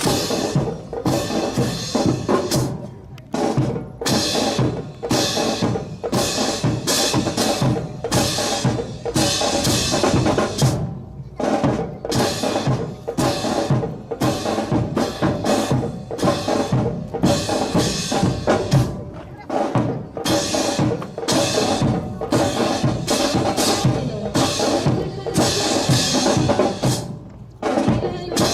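Drill team's rifle drill: a dense run of sharp wooden clacks and slaps from rifles being handled, spun and struck, with percussion-heavy music, pausing briefly a few times.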